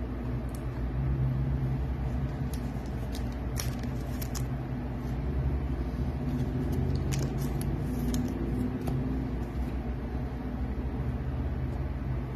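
Steady low rumble of background noise, with a few light clicks and taps as trading cards are set into plastic display stands.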